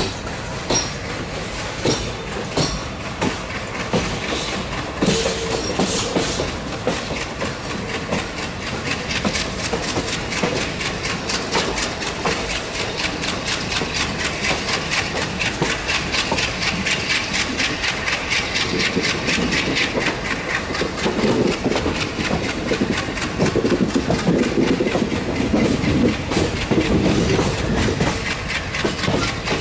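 Express passenger train's wheels clattering over rail joints and crossover points as it snakes onto the main line. Scattered single clacks at first, then from several seconds in a fast, continuous clickety-clack.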